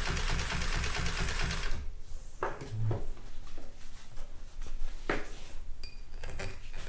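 Consew 206RB-5 walking-foot industrial sewing machine stitching through fabric in a rapid, even rhythm that stops abruptly about two seconds in. A few light clicks and knocks follow.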